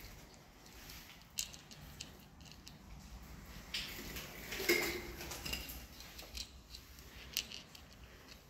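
Footsteps crunching and scuffing over broken concrete and debris on a bunker floor: a few irregular steps, the loudest a little past the middle.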